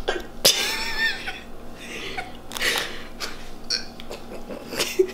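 A girl's stifled laughter in a few short breathy bursts, the first with a high squeal about half a second in.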